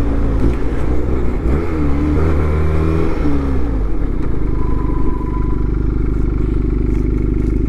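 Benelli 252R's parallel-twin engine dropping in revs while the bike brakes hard on the rear brake alone, its note falling and changing pitch over the first three seconds or so, then settling into a steady idle as the bike stops.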